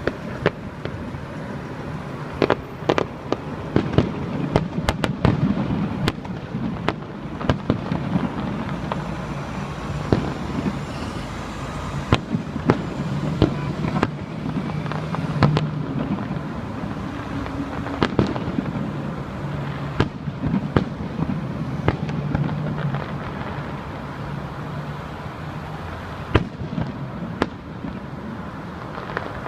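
Fireworks going off in an irregular string of sharp bangs over a steady rumble of noise, with a steady low hum through the middle stretch.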